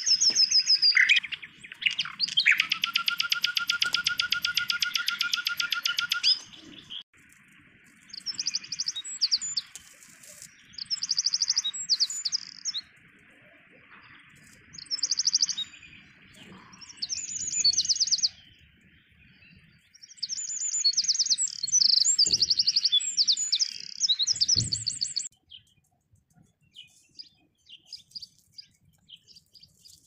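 Songbirds singing in rapid, high trilled phrases. A loud run lasts about the first six seconds, then shorter phrases come every few seconds and a longer run follows near the middle. Only a few faint scattered chirps remain in the last few seconds.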